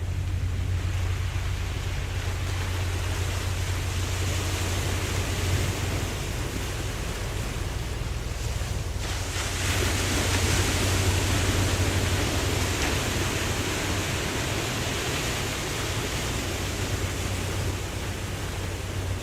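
Ocean waves washing in a steady hiss over a constant low rumble, with a surge of surf about halfway through that slowly eases off.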